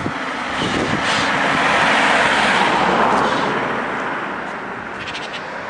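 A car driving past on the road: its tyre and engine noise swells to a peak about two seconds in, then fades away as it recedes.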